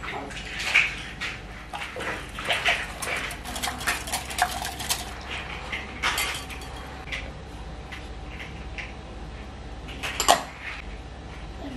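A wire whisk clinks and taps irregularly against a glass mixing bowl as it stirs a thin liquid batter, with one louder knock about ten seconds in.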